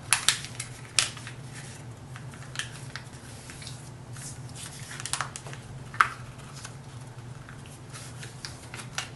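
A sheet of copy paper being folded and creased by hand into a paper airplane: scattered crackles and rustles, the sharpest near the start, about a second in, and at about six seconds, over a steady low hum.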